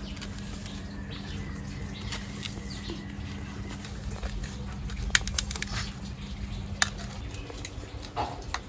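Hands kneading crumbled chhena (fresh curd cheese) with spices on a steel plate: soft pressing and rubbing, with scattered light clicks against the metal, over a steady low hum that stops about seven seconds in.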